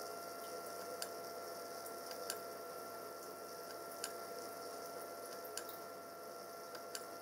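Five sharp clicks about a second and a half apart as the push buttons on a homemade microcontroller aquarium controller are pressed, over a faint steady hiss with a thin high hum.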